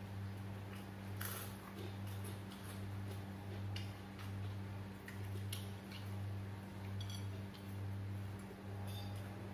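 Scattered clinks of cutlery and plates during a meal at a table, a few sharp ticks and taps, over a low hum that swells and fades about every three-quarters of a second.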